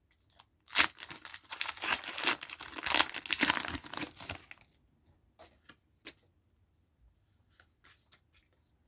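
Foil booster-pack wrapper being torn open, a dense run of crinkling and ripping for about four seconds, then a few faint rustles and clicks as the cards are handled.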